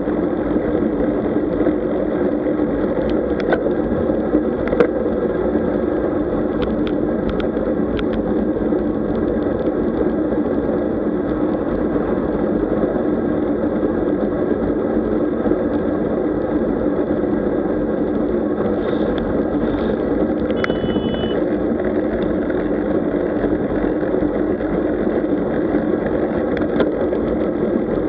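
Steady, muffled rumble of wind and road noise from riding a road bike, with a few faint clicks and a brief high tone about two-thirds of the way through.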